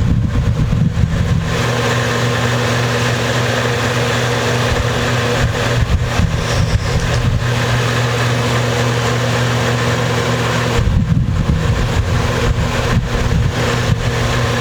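Electric room fan running with a steady hum and rushing air, its draught hitting the microphone as low wind rumble that is strongest near the start and again from about eleven seconds in.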